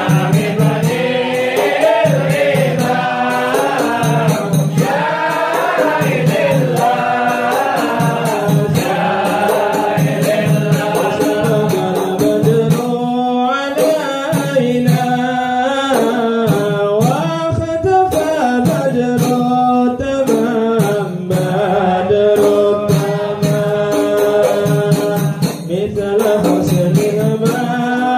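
A group of men singing Islamic devotional verses (sholawat qasidah) together in Arabic, with hadrah frame drums keeping a steady beat under the melody.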